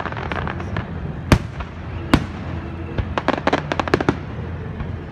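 Aerial fireworks bursting: loud single booms about a second and a half in and again near two seconds, then a rapid run of crackling pops between three and four seconds in, over a steady low rumble.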